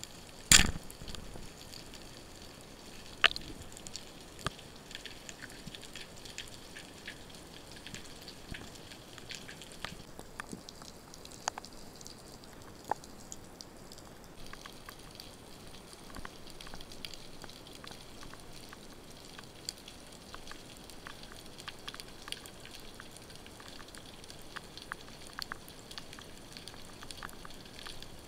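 Speargun firing underwater: one sharp crack about half a second in, with a smaller knock about three seconds in. A steady underwater crackle of faint scattered ticks runs under it.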